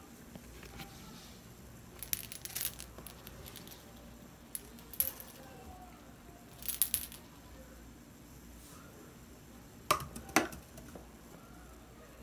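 A kitten batting a small cat toy around, the toy clinking and rattling in several short bursts of quick clicks; the loudest come near the end.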